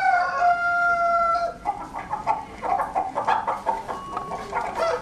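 A rooster crowing, its long last note held and falling slightly, then short clucking calls.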